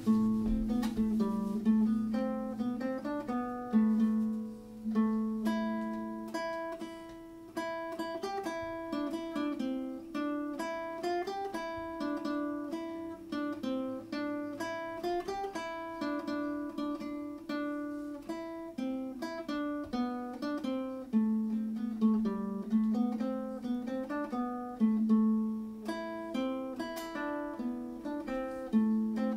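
Nylon-string classical guitar played solo: a fingerpicked melody of plucked notes over ringing low bass notes, with no singing.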